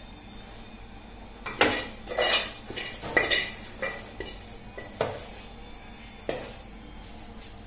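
Metal spatula scraping and clanking against a steel pan in a series of sharp, irregular clatters as cooked potato-fenugreek fry is scraped out into a steel bowl.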